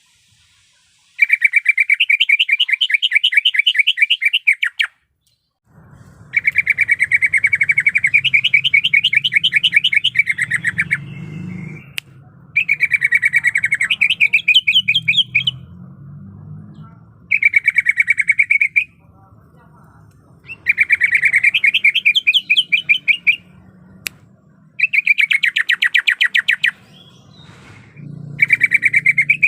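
Greater green leafbird (cucak ijo) singing in seven bursts of fast, repeated trilled notes, each two to four seconds long with short pauses between. A low background hum comes in about six seconds in.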